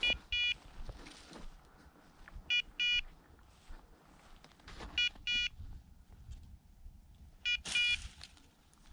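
Bird dog's beeper collar sounding its point alert: four pairs of short, high beeps, one pair about every two and a half seconds, the sign that the dog is holding point.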